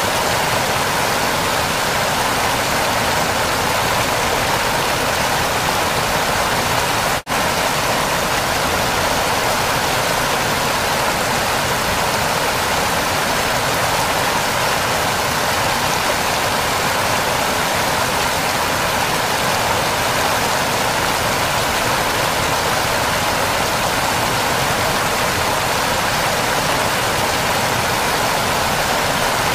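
Waterfall: a steady, loud rush of falling water, which cuts out for an instant about seven seconds in.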